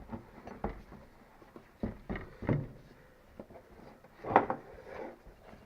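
Scattered knocks, scrapes and rustles from an old perished rubber motorcycle seat being pulled apart from its metal frame by hand. The loudest handling noise comes a little past four seconds in.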